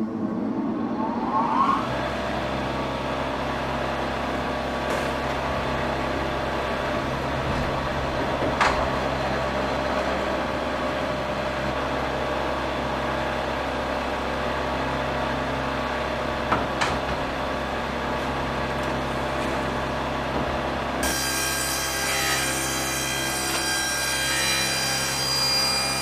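Sawmill saw machinery running up to speed in the first couple of seconds, then running with a steady hum and a couple of sharp knocks. About 21 s in, a higher, ringing whine joins as the saw works through the wood.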